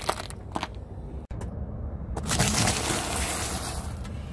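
Car tyre rolling slowly over dry tagliatelle nests, crunching and snapping the pasta, then over a chocolate wafer biscuit, crunching it flat. The sound drops out briefly just over a second in.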